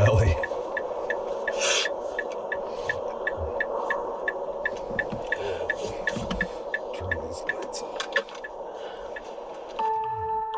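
A steady hum with a light, regular ticking about three times a second; chiming music tones start near the end.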